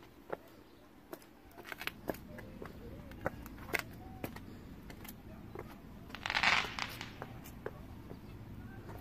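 Scattered sharp pops and cracks from small fireworks, irregular and of varying loudness, with a short loud hiss about six and a half seconds in.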